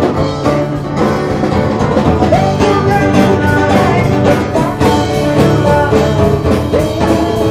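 A small live band playing a song: guitar over a drum kit keeping a steady beat, with a singing voice.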